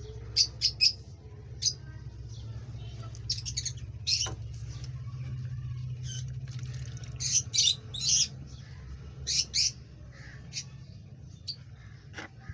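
Pet parrots calling in short, shrill squawks and chirps that come in quick clusters of two or three, over a steady low hum.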